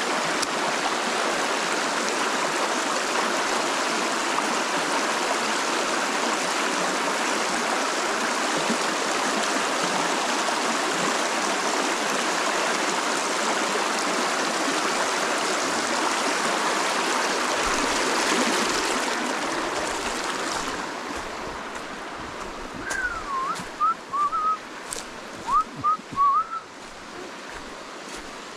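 Shallow rocky creek water rushing and splashing, a steady noise that falls away about twenty seconds in. Near the end comes a quick run of short whistled notes.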